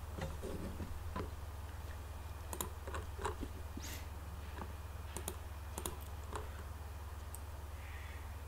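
Irregular faint clicks of a computer mouse over a steady low electrical hum.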